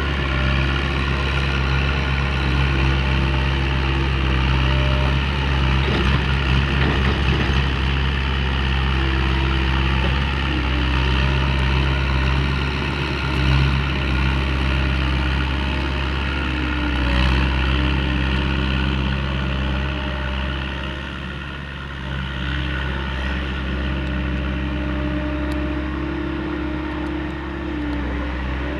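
A steady motor drone with a deep, unchanging hum and a few higher tones that come and go, dipping slightly in level about three-quarters of the way through.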